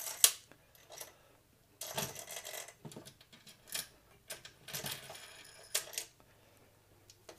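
Small metal spacers clinking and tapping as they are dropped and slid onto long threaded mounting rods in an aluminium chassis: a string of short clicks and brief rattles with quiet gaps between them.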